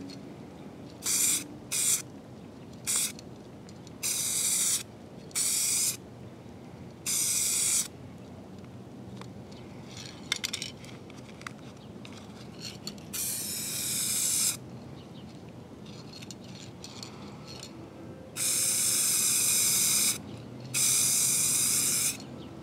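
Aerosol spray paint can spraying in a series of short hissing bursts, then two longer passes of about two seconds each near the end, laying a coat of paint onto a car mirror.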